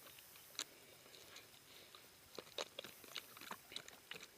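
Faint, irregular crunching and clicking, a few scattered short snaps with the loudest group in the second half.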